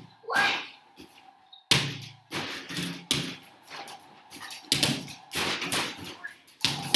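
Small basketballs shot in quick succession at an arcade-style basketball hoop game, banging against the backboard and rim and dropping back onto its netted return ramp, in a rapid, irregular series of thumps.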